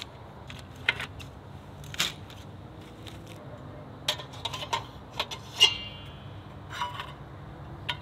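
Sheet-metal side panels of a pop-up fire pit handled and slotted onto its frame: scattered metal clinks, knocks and scrapes, thickest in the second half, with one clank about two-thirds of the way through that rings briefly.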